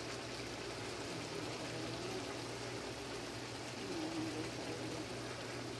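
Steady low hum with a soft even hiss: quiet room tone, with a faint short hum from a voice about four seconds in.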